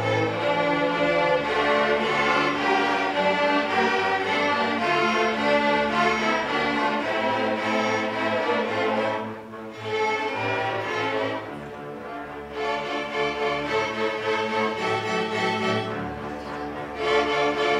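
A string orchestra of violins, cellos and double basses playing; the playing drops back briefly about ten seconds in, stays softer for several seconds, then swells back to full near the end.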